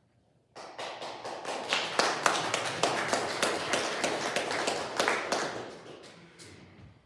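Many people applauding, starting suddenly about half a second in and dying away over the last second or two.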